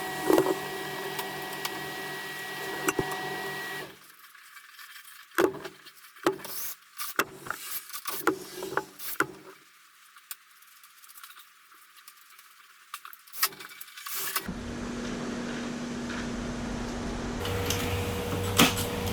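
A cordless drill motor running in steady spells, with a quieter stretch of clicks and knocks from the deadbolt hardware and tools being handled.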